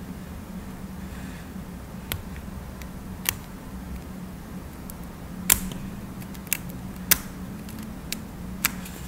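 Scattered sharp clicks and taps, about seven at irregular intervals and loudest twice about midway, from fingernails, nail tips and nail tools being handled, over a steady low hum.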